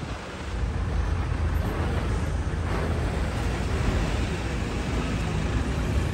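Steady low rumble of vehicle engines and traffic heard from inside a car moving slowly in traffic.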